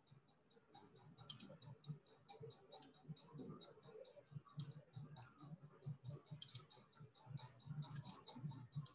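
Near silence: faint room tone with a fast, even ticking, several ticks a second.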